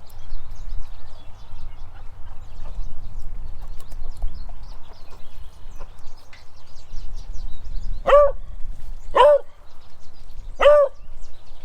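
A beagle gives three short barks starting about eight seconds in, demanding that its ball be thrown. Before the barks, wind rumbles on the microphone.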